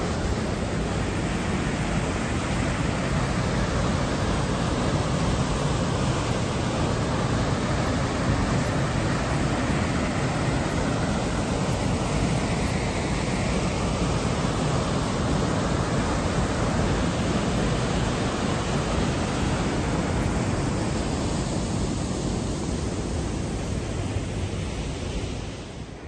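Waterfall and the white-water river below it rushing steadily, a dense, even wash of water noise that drops off a little near the end.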